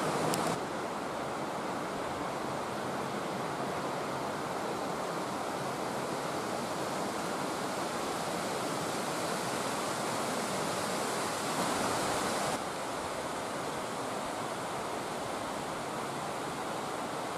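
Steady rushing noise of flowing water, with a brief click at the very start and a sudden small drop in level about twelve and a half seconds in.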